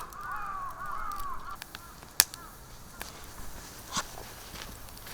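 A bird's harsh, arched calls repeated about four times in quick succession, then a few sharp cracks, the loudest about two seconds in.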